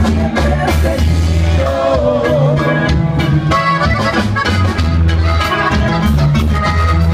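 Live norteño band playing, with the accordion leading over a pulsing bass line.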